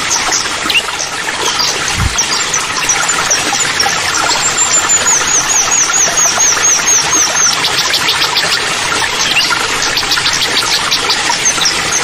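Waterfall pouring steadily into a pool, with small birds singing rapid, high-pitched chirps over the rush of water. About halfway through, one bird gives a quick run of about a dozen down-slurred notes. A brief low thump comes about two seconds in.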